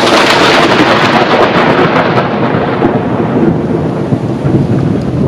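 Loud thunder rumbling, its hiss fading over the first few seconds, with rain and gusting wind on the microphone.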